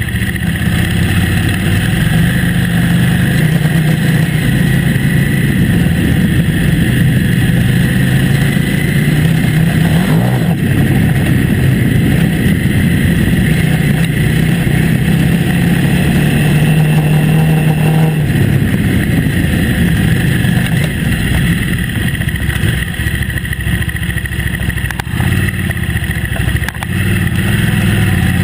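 KTM 950 Adventure S's V-twin engine running under way, close to the microphone, pulling steadily for most of the time, then easing off about two-thirds of the way through and picking up again near the end. A single short knock about a third of the way in.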